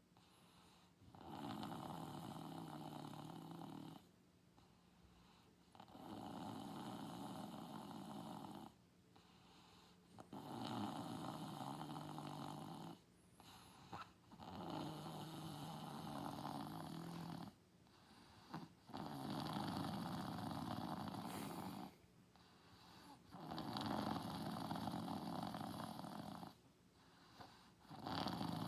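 Snoring: about six long, regular snores, each lasting around three seconds, with short quiet breaths between them.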